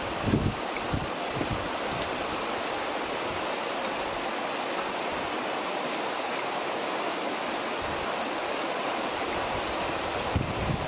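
Shallow stream water running steadily over a pebble bed, an even rushing hiss. There are a few low rumbles of wind on the microphone in the first second or so and again near the end.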